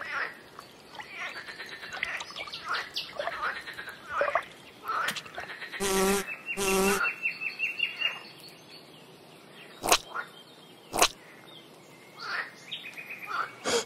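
Birds chirping in the background. About six seconds in, a fly's wings give two short buzzes, followed by a quick run of high ticks. Two sharp clicks come around ten and eleven seconds.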